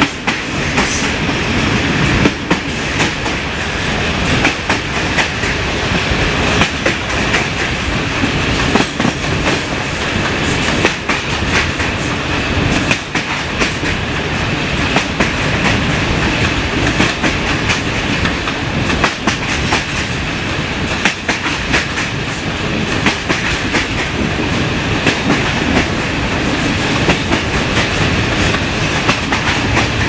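Wheels of a regional passenger train running over jointed track at speed, heard from an open carriage window: a steady rumble and rattle with frequent sharp clicks as the wheels cross the rail joints.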